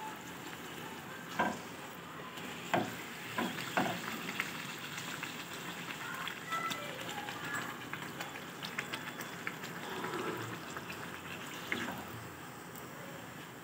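A puri deep-frying in hot oil in a kadai, the oil sizzling and crackling steadily as the puri puffs up, with a few sharp knocks between about one and four seconds in.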